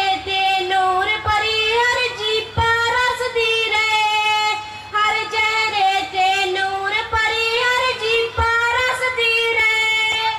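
A woman singing a Punjabi song in a high voice, holding long notes that slide and step between pitches.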